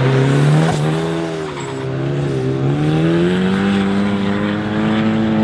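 Turbocharged 1.8-litre Mazda BP four-cylinder in an Exocet track car running hard under load, its pitch dipping about a second and a half in and then climbing steadily as it accelerates.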